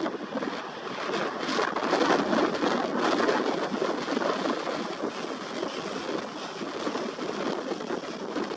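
Strong gusty wind buffeting the microphone: a rough, uneven rush that swells about a second in and stays strong.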